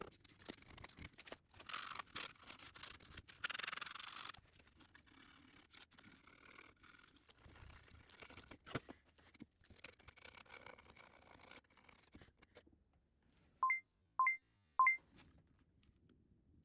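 A Scotch-Brite pad scrubbing a brass pin in quick rubbing strokes for about the first four seconds, then scattered light clicks and knocks of handling. Near the end come three short, high beeps about half a second apart.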